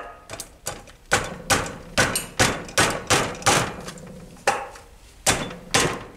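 A hammer repeatedly tapping a heated clutch cover down onto a Tomos A35 moped engine case to seat it over its bearings. About a dozen sharp strikes come roughly two a second, with a short pause a little after the middle.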